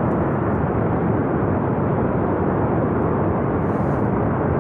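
Loud, steady rumble of a glacier-burst flood torrent, water and debris rushing down the river valley.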